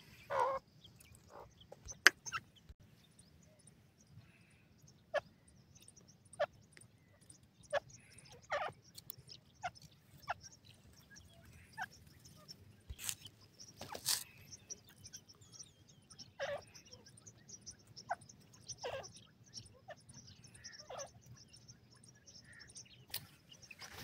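Grey francolin giving soft, short clucking notes, scattered a second or two apart, mixed with faint clicks.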